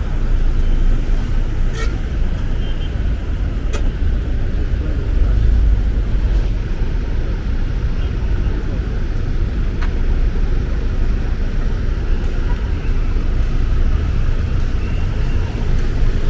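Steady low rumble of road traffic in an urban outdoor setting, with a few faint clicks about 2, 4 and 10 seconds in.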